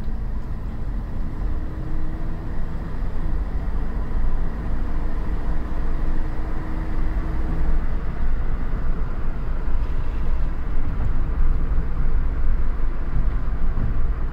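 A car driving along a street, heard from inside the cabin: a steady low rumble of engine and road noise.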